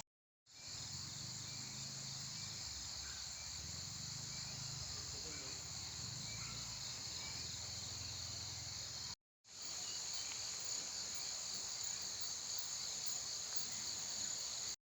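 Steady, high-pitched chorus of insects, crickets or cicadas, with a low rumble beneath it for the first half. It drops out abruptly for a split second at the start and again about nine seconds in, then resumes.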